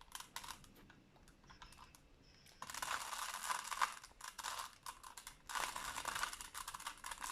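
Rubik's cube being turned by hand: quick runs of plastic clicking and rattling as the layers are twisted. It is quieter for the first couple of seconds, then dense clicking starts about two and a half seconds in, pauses briefly around five and a half seconds, and carries on.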